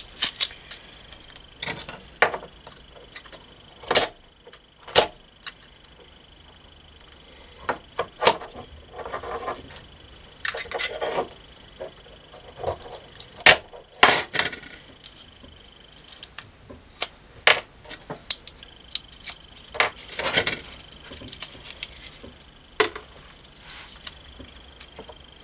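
Small steel bracket pieces and nuts clinking and tapping as they are handled and set down on a wooden workbench: scattered, irregular metallic knocks.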